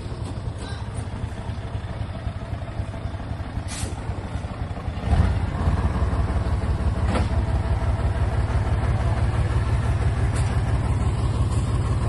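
Hino dump truck's diesel engine running at low revs, then louder from about five seconds in as it is revved up.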